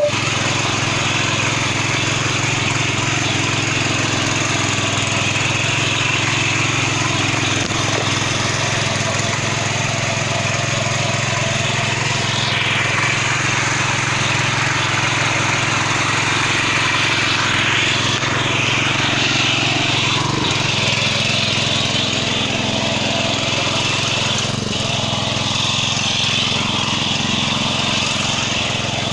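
Maijo M700 ECO 7 hp petrol power weeder running steadily under load, its rotary tines tilling soil.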